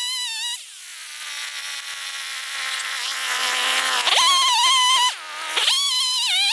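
Stihl chainsaw running at high revs with a wavering, buzzy pitch. About half a second in the pitch falls away, as if the throttle is let off. It comes back up just before four seconds, dips once more briefly about a second later, then revs high again.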